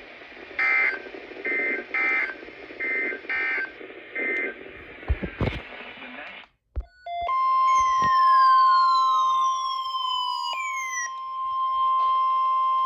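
NOAA Weather Radio broadcast: six short bursts of SAME digital data over radio hiss, the end-of-message code that closes the previous alert. After a brief dropout, the steady 1050 Hz Weather Radio warning alarm tone starts about seven seconds in, with a falling tone gliding down across it over about three seconds, then a second, shorter falling glide.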